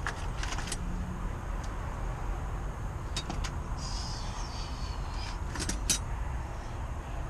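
Small sharp metallic clicks and a brief scrape from a screwdriver working a stripped screw on lock hardware, a few scattered ticks about half a second in, around three seconds and around six seconds. A steady low rumble sits underneath.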